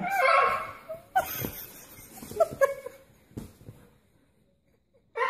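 A man wailing in mock crying while a Siberian husky howls and whines along with him, in a few wavering bursts that stop about three and a half seconds in.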